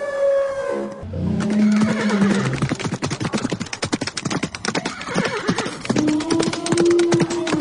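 Stampede sound effect: a dense, fast clatter of galloping hooves, with drawn-out animal calls over it, one ending about a second in, a lower one just after, and another near the end.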